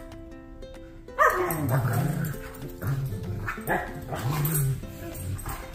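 Two German shepherds, an adult and a puppy, play-fighting: a string of growls and barks starting about a second in, with music playing underneath.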